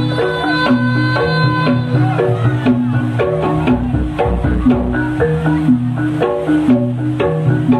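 Jaranan accompaniment music: a Javanese gamelan-style ensemble with struck metal-keyed percussion playing quick repeated note patterns over drums and a steady low bass. A held melodic line sounds over it for the first couple of seconds.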